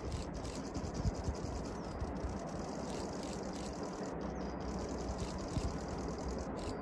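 Faint, steady rushing of a distant C58 steam locomotive working across the valley, with wind buffeting the microphone in irregular low gusts.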